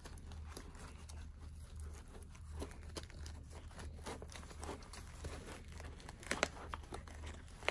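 Faint rustling and scraping of a nylon strap being threaded tightly through MOLLE/PALS webbing loops on a plate carrier and pouch, with a few short sharp scrapes, the loudest about six seconds in.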